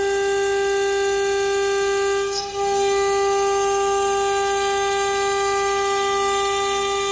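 Stone CNC machine's spindle running with a steady whine, one held pitch with overtones, with a brief dip in level about two and a half seconds in.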